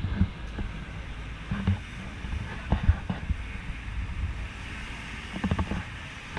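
A 4x4 tour vehicle driving on a rough track: a steady low rumble of engine and tyres with wind noise on the microphone, and several knocks and jolts, the loudest about three seconds in and a few more near the end.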